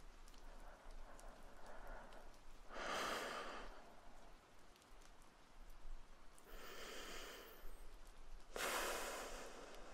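A man breathing slowly and close to the microphone: three long breaths, about a second each, over faint steady rain.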